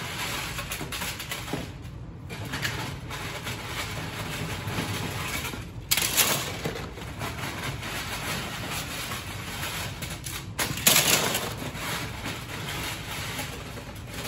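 A plastic bin liner rustling and loose LEGO pieces clattering as hands rummage through them, with louder bursts of rustling and rattling about six and eleven seconds in.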